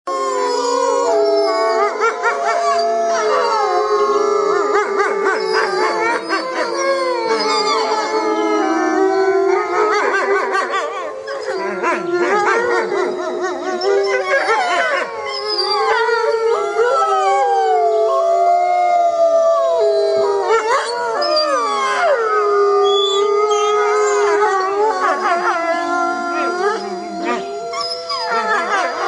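A wolf pack howling in chorus: several long howls overlap without a break, each sliding up and down in pitch.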